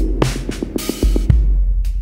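Electronic background music with a drum-machine beat over a deep, sustained bass.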